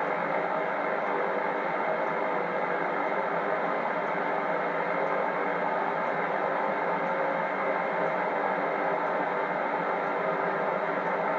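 Steady hiss and band noise from a Lowe HF225 shortwave receiver tuned to the 17-metre amateur band for Morse code, with faint steady tones in the noise but no clear keying.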